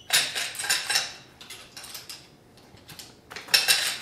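Honda B-series camshaft caps and their bolts clinking and rattling as they are handled and set down, in two bursts of metallic clatter: one in the first second and another near the end.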